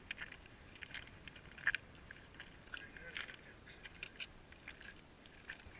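Faint footsteps crunching on ice, heard as scattered small clicks and scrapes over a low hiss, with one sharper crunch about two seconds in.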